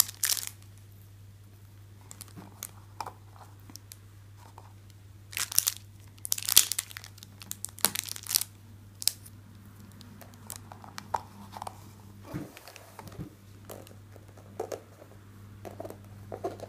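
Handling noise of hands moving yarn-covered cardboard cone trees: scattered rustling and crinkling, with the loudest crinkles about five to eight seconds in. A steady low hum lies underneath.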